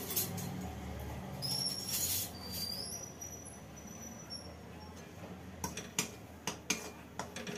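Steel spoon knocking and scraping against a steel pan in a run of quick clicks during the second half, stirring a thick gram-flour batter. Before that, a soft hiss with a few thin high whistling tones, one held for about two seconds.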